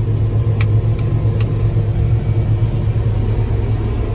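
Amadas 9960 self-propelled peanut combine running with a steady low drone, with three short clicks about a second in.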